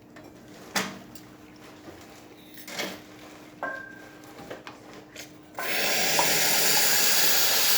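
A few light knocks and clicks, then about five and a half seconds in the hot water wand of a Quick Mill Andreja Premium espresso machine opens and hot water rushes out with a sudden, steady, loud hiss.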